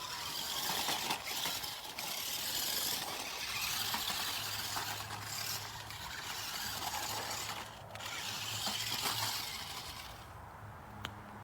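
Toy RC rock crawler truck driving, its small electric motor and gears running with a noisy rattle that rises and falls in level, and a low steady hum joining about a third of the way in.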